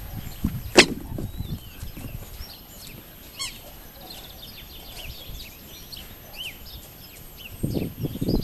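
Small wild birds chirping on and off, with one sharp click about a second in and a run of low rustling thuds near the end.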